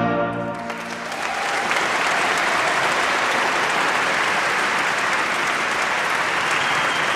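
Music fading out in the first second, then many people clapping steadily.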